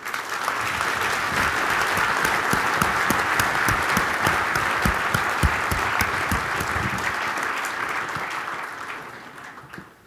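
Large audience applauding, rising quickly at once and then fading out over the last couple of seconds.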